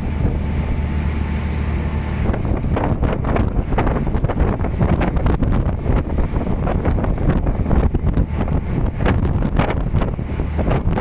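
Strong wind buffeting the microphone on a fishing boat at sea in rough water, over the wash of the sea. A steady low engine hum is clear in the first two seconds, then the gusts cover it.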